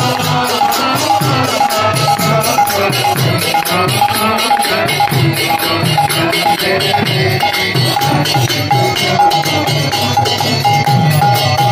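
Devotional kirtan music: brass karatal hand cymbals clash in a steady, ringing rhythm over the beat of a mridanga barrel drum, while a lead singer and the crowd sing a chant.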